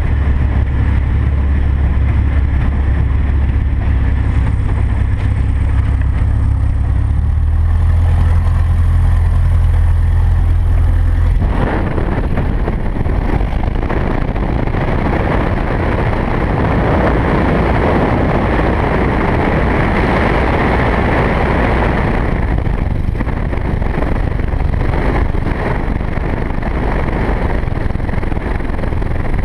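Bearhawk light aircraft's piston engine and propeller running during the landing roll on a grass strip: a steady low drone that shifts slightly in pitch about seven seconds in. About eleven seconds in it changes abruptly to a rougher rushing noise of the engine at low power with the propeller turning slowly.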